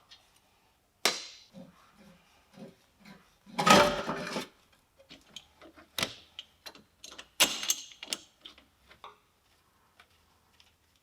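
Irregular clicks and knocks of tools and metal parts being handled, with a louder scraping clatter about four seconds in and another cluster of knocks a few seconds later.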